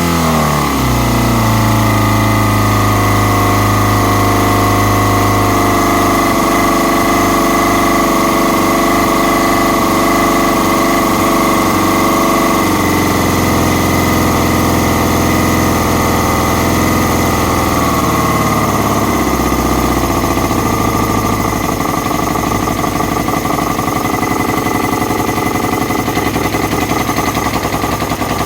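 Kawasaki ZX-6R inline-four engine idling after a rev: the revs fall at the start, hold, then drop a step twice, and the idle turns uneven and fluttery near the end. The owner puts the unsteady idle down to a vacuum leak.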